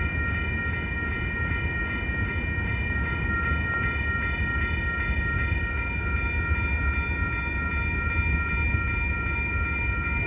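Railroad grade-crossing warning bells ringing steadily over a low, constant rumble.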